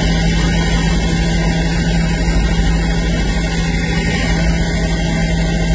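Helicopter engine and rotor noise heard from inside the cabin: a steady, loud drone with a constant low hum.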